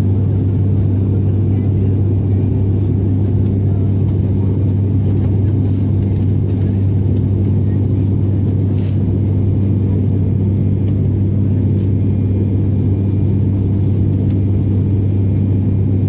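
Turboprop airliner engines and propellers droning inside the cabin in cruise: a loud, steady, deep hum with a strong low tone.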